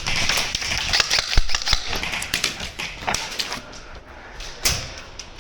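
Airsoft guns firing: a rapid run of sharp clicks and pops from shots and BBs striking surfaces, densest in the first three seconds, with one louder crack near the end.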